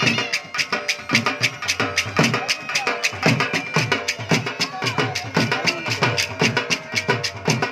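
Dhol, a double-headed barrel drum, beaten in a fast, steady rhythm of sharp strokes, many to the second, driving a folk dance.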